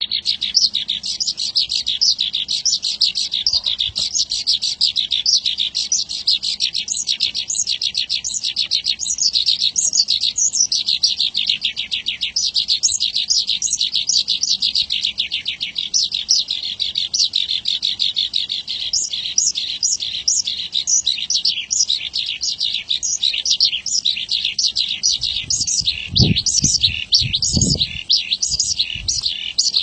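Javan bush lark (branjangan) singing a continuous fast stream of chirps and trills without a pause. Two short low thuds come near the end.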